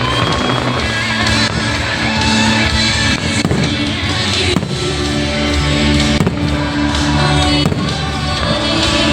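Fireworks bursting with sharp bangs every second or two, over show music played through loudspeakers.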